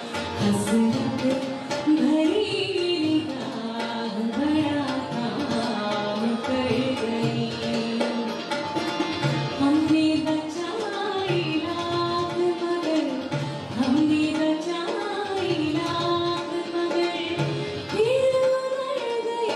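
A woman singing a ghazal, her melody bending and gliding between held notes, accompanied by tabla strokes throughout.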